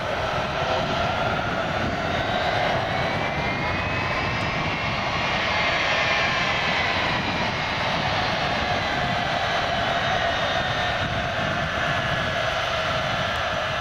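Boeing C-17A Globemaster III's four Pratt & Whitney F117 turbofans running at taxi power: a steady jet rush with a whine that climbs in pitch over the first few seconds, then holds.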